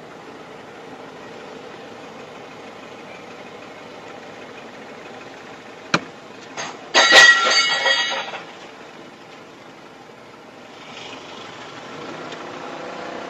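Steady hum inside a car's cabin, broken about six seconds in by a sharp knock and, a second later, a loud clattering impact with metallic ringing as the car-park boom barrier arm strikes the car.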